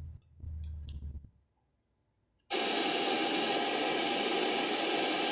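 A few soft clicks of the Pioneer DEH-1650 car stereo's buttons being pressed, then about two and a half seconds in a loud, steady hiss of static cuts in from its speaker output and carries on unchanged.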